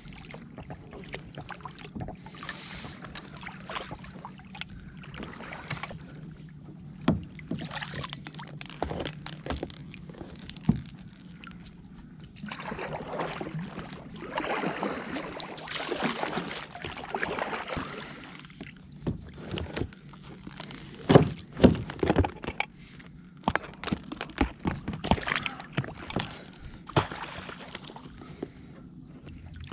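Plastic duck decoys being gathered and tossed in shallow marsh water: irregular sloshing and splashing with sharp knocks scattered throughout, the busiest splashing about halfway through and the loudest knocks a little after.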